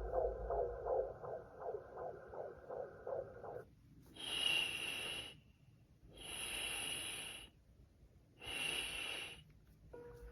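A white-noise plush toy's speaker playing its soothing sounds: a quick pulsing sound for the first few seconds, then three long hissing, breath-like sounds about two seconds apart.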